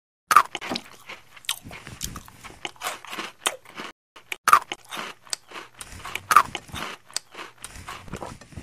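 Bites into a crunchy sprinkle-topped cookie: three loud crunches, about a third of a second, four and a half and six and a half seconds in, with crackly chewing in between.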